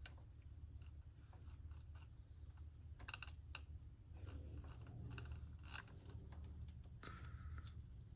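Scattered light clicks and taps of small plastic parts being handled, over a low steady hum, as the gears of an opened cassette data recorder's tape mechanism are pressed and fitted into place; a short squeak near the end.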